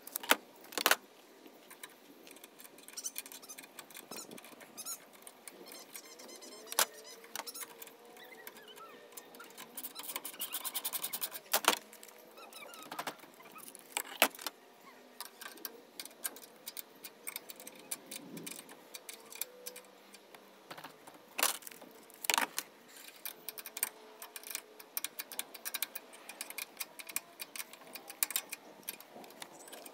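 Metal clinks and knocks of tools and steel awning mounting brackets against a steel roof basket, irregular and sharp. About ten seconds in comes a quick run of even clicking from a ratchet wrench.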